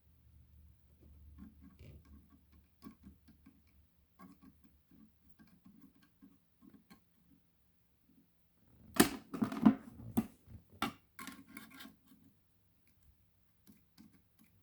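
Handling noises at a workbench while battery cells are being soldered: faint scattered taps and scrapes, then a cluster of sharp clicks and clatter about nine seconds in.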